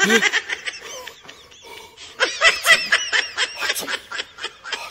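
High-pitched laughter: a quick run of giggling pulses that grows louder about two seconds in.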